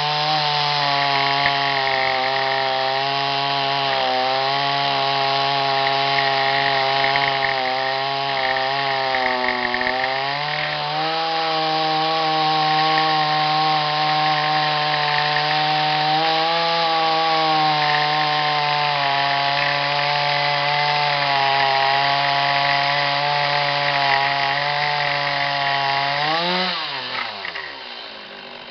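Two-stroke chainsaw in a chainsaw mill, running at high revs through a long ripping cut along a log. The pitch sags a little now and then under the load of the cut. Near the end the throttle is released and the engine winds down.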